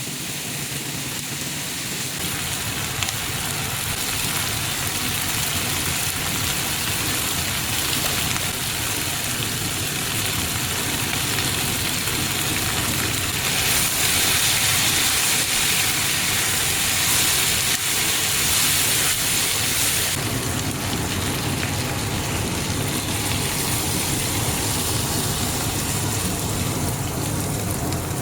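Food sizzling steadily in a hot pan, louder for a stretch in the middle.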